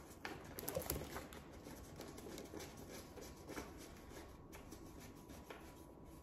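Paper rustling and rubbing as a paper spine label is worked into a folder's spine sleeve, with a cluster of light taps and crinkles in the first second or so that thins to faint rustling.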